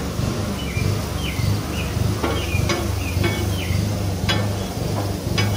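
Diced sweet onions sizzling as they start to caramelize on a Blackstone flat-top griddle. From about two seconds in, a metal spatula scrapes and clicks against the griddle steel several times as the onions are turned.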